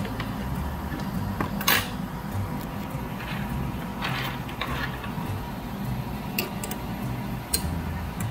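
Small metal clicks and a brief scrape from the record-changer mechanism of a Dual 1229 turntable as it is handled and taken apart. The sharpest click comes nearly two seconds in, a scrape about four seconds in, and two lighter clicks near the end.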